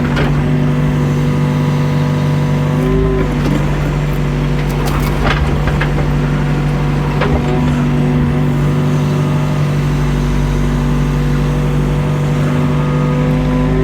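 Mini excavator's diesel engine running steadily under load, heard from inside the cab, its pitch dipping briefly about three seconds in and again near the end. A few sharp clicks and knocks sound over it.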